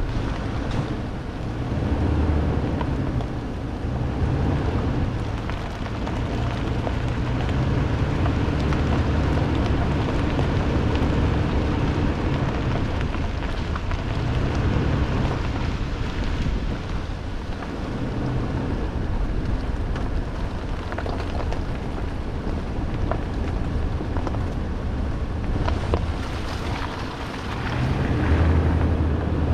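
Pickup truck's V8 engine running at low revs, swelling and easing off every few seconds as it crawls over a rough off-road trail, over a steady noisy rumble.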